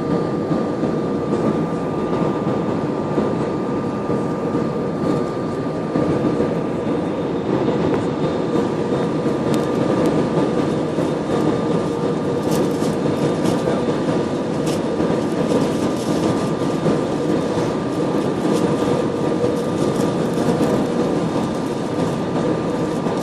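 Steady airliner cabin noise during the approach: an even rush of engine and airflow noise with a faint steady whine through it and a few light rattles about halfway through.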